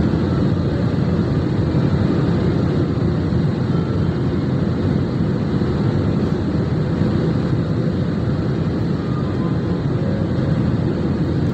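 Steady airliner cabin noise in flight: the jet engines and rushing air heard from a window seat beside the engine, a dense, low, even noise that does not change.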